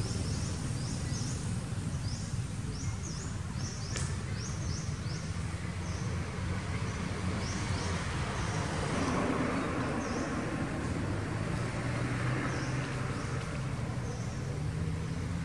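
Outdoor ambience: short high chirps repeating a few times a second over a steady low rumble, with a single click about four seconds in.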